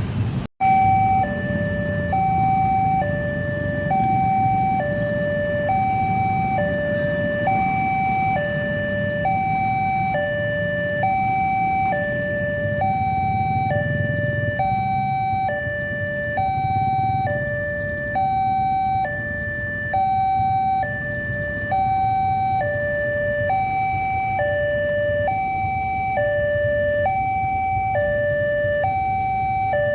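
New electronic siren at a railway level crossing sounding a steady two-tone hi-lo wail, the tones alternating about twice a second, with road-traffic rumble underneath.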